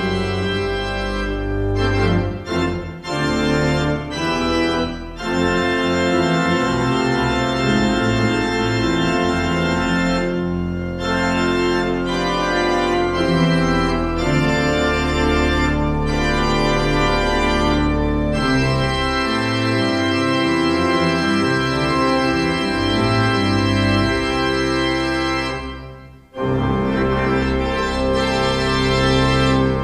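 Church pipe organ playing full sustained chords over a deep pedal bass, with shorter detached chords in the first few seconds and a brief break near the end before the chords resume.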